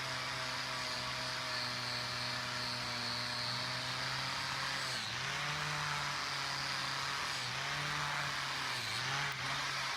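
Electric power tool motor running with a steady hum and hiss, its pitch dipping and recovering several times in the second half as it is pressed into the work.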